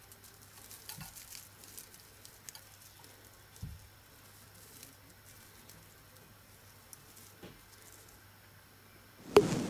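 Faint scattered clicks and rustles of surprise eggs and their wrapping being handled, then near the end a sudden, much louder run of crinkling and clicking.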